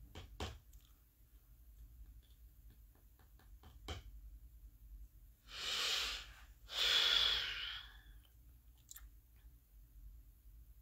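A person breathing heavily close to the microphone: two long breaths, one after the other, a little past halfway, with a few faint clicks before them.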